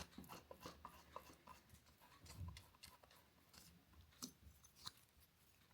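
Faint, scattered small clicks and scrapes of something being handled, with near silence between them.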